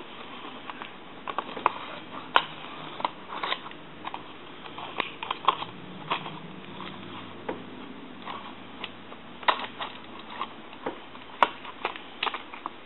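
Irregular small clicks and taps of metal parts and tools being handled and fitted while a rotary telephone dial is reassembled.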